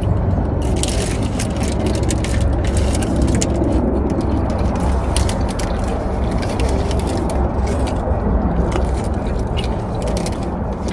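Eating noises of chewing and the crackle of food wrappers handled, in many short clicks, over a steady low rumble.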